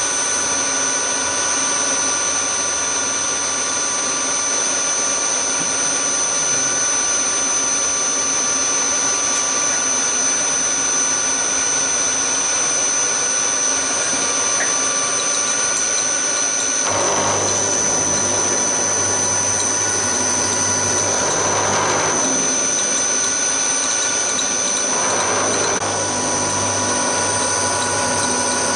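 Hafco HM 54GV milling machine running, its end mill cutting aluminium: a steady motor and spindle whine with the hiss of the cut. About halfway through a low hum joins, and the cutting noise swells several times.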